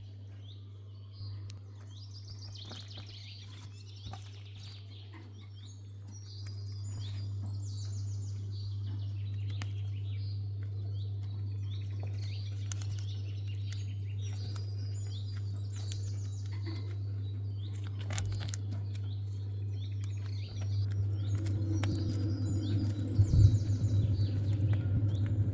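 Small birds chirping in short repeated phrases over a steady low hum. The hum grows louder about six seconds in and again near the end, and scattered light clicks run through it.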